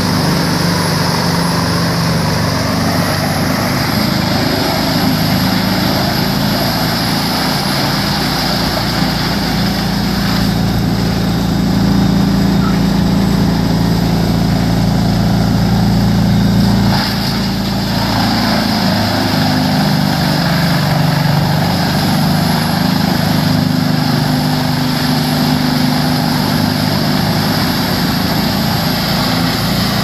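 Large industrial wood chipper running under load, chipping logs, its engine droning steadily. The noise swells for several seconds in the middle and drops back abruptly about seventeen seconds in.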